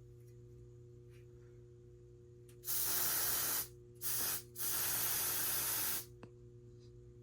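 Solo aerosol smoke-detector tester sprayed in three bursts into a smoke detector to set off the fire alarm system for a test: a hiss of about a second, a short one, then a longer one of about a second and a half. A steady low hum runs underneath.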